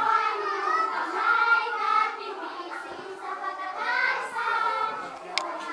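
A group of children singing together in chorus. A few sharp clicks come near the end.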